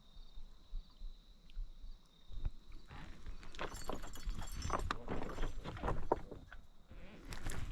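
Low wind rumble on the microphone under a steady thin high tone. About three seconds in comes a busy run of close rustling, clattering and knocks, typical of hands and gear being handled near the microphone.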